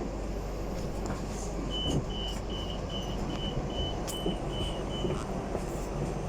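Hong Kong Light Rail train's door-closing warning: a run of about nine short, even, high beeps, roughly two and a half a second, over the steady rumble of the train.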